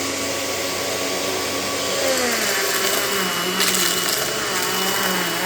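Panasonic MC-UG583 upright vacuum cleaner running steadily just after being switched on, its motor hum shifting a little in pitch about two seconds in. A brief crackle comes about three and a half seconds in.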